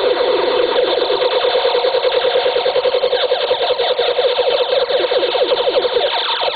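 Circuit-bent child's toy keyboard putting out a loud, continuous glitchy electronic noise: a held buzzing tone broken into rapid stuttering pulses, many per second, with short chirps over it.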